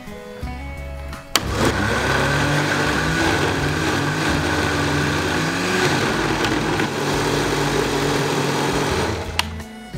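Russell Hobbs jug blender motor running, starting about a second and a half in and stopping near the end, its blades churning a thick chilli, pepper and oil mix into harissa paste.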